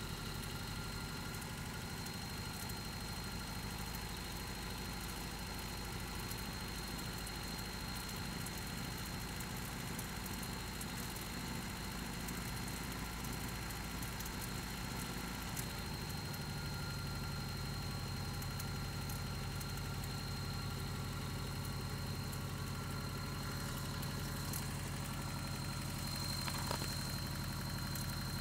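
Toyota 22RE 2.4-litre four-cylinder engine idling steadily, with a faint repeated ticking over the running. The owner suspects a noisy timing chain or rod knock.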